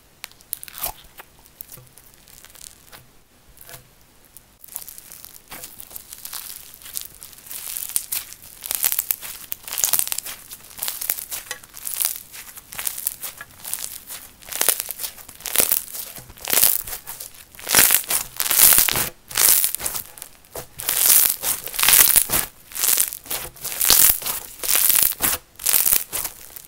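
Pink microfoam slime being stretched, folded and pressed by hand, its foam beads giving crackling, crinkly crunches. Soft at first, the crunches grow louder after a few seconds and come about once a second.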